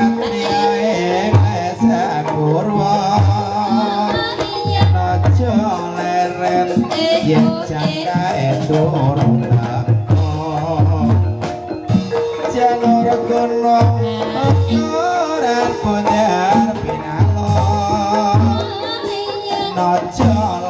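Gamelan music accompanying an ebeg hobby-horse dance. Steady metallophone tones and repeated kendang drum strokes play under a wavering sung melody.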